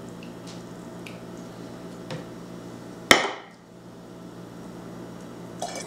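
A glass carafe set down on a wooden tabletop: one sharp knock about three seconds in with a short ring. Faint clinks of glassware come before it and near the end.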